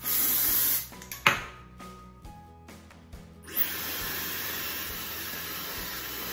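A short hiss of aerosol dry shampoo sprayed into hair, under a second long, then a sharp click. About three and a half seconds in, a Dyson Supersonic hair dryer switches on and runs with a steady rush of air, over faint background music.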